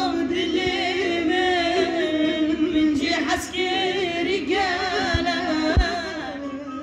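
A solo voice singing a Kurdish folk song in long held notes that waver and bend in pitch.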